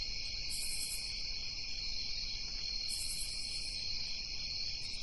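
Crickets chirping steadily in a night chorus, with a higher trill that comes and goes in short spells.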